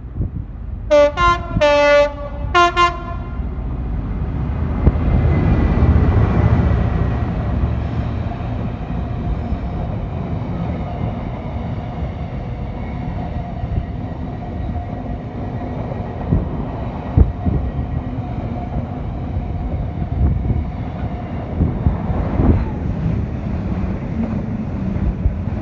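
A Class 66 diesel locomotive sounds a few short blasts on its horn as it approaches, then its container freight train rumbles through with wheels clattering over the rail joints, loudest a few seconds after the horn. Near the end a Class 745 electric passenger train runs past.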